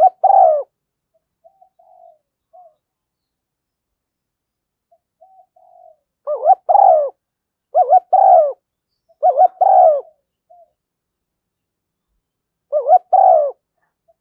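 Spotted dove cooing: loud, short two-part coo phrases, one at the start and four more in a run from about the middle to near the end, with soft short coo notes in between. This is a lure call recording played to get captive doves calling.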